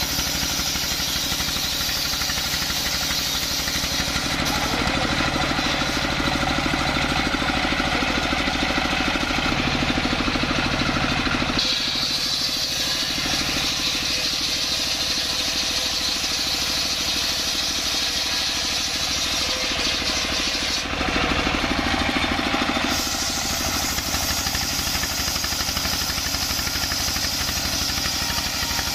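Stationary single-cylinder diesel engine running steadily, belt-driving a circular saw blade that rips lengthwise through a coconut-palm log. The tone shifts several times as the blade works through the wood.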